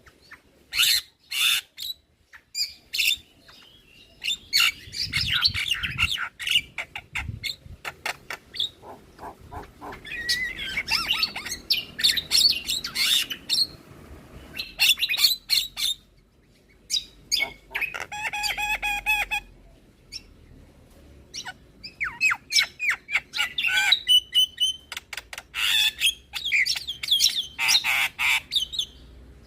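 Javan myna (jalak kebo) singing a varied song of rapid clicks, harsh squawks and chattering trills. A held whistled note comes about two-thirds of the way through.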